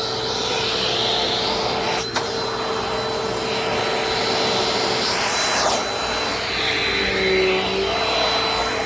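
Dirt Devil Dynamite vacuum cleaner running steadily, a constant motor hum under a rush of air that shifts up and down in pitch. One sharp click about two seconds in.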